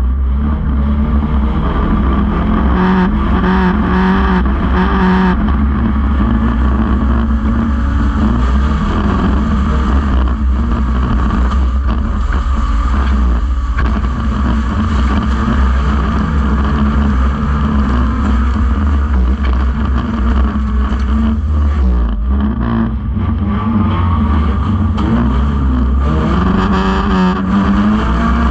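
Banger racing car's engine running loud and being revved hard, heard from inside its stripped-out shell, its pitch rising and falling.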